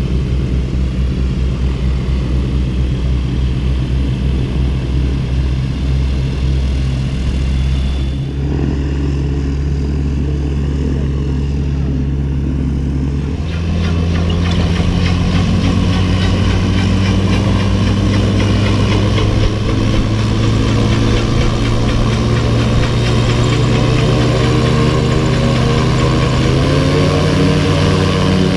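Gyrocopter's engine and pusher propeller running on the ground, a steady low engine note that rises in pitch and gets louder about 13 seconds in.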